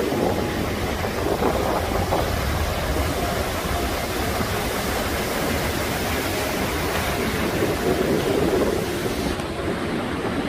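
Rough, storm-driven sea surf breaking and churning: a dense, steady rush of noise, with wind buffeting the microphone.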